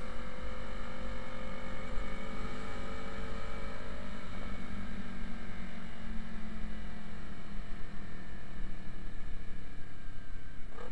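Motorcycle engine running under way with wind and road rush. The engine note changes briefly about four seconds in, then sinks slowly.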